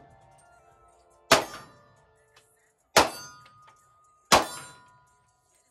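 Three pistol shots from a semi-automatic handgun, about a second and a half apart. Each shot has a short outdoor echo, and a faint metallic ring follows as the rounds ping off steel targets.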